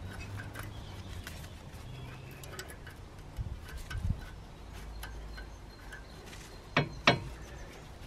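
A cloth rag rubbing and scraping on a brake caliper bracket as it is wiped clean, with faint small clicks, then two sharp knocks close together near the end.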